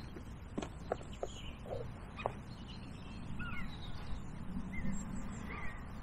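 Faint birdsong: short, scattered chirps and glides over a low outdoor rumble, with a few small clicks of hands working at the bait tray.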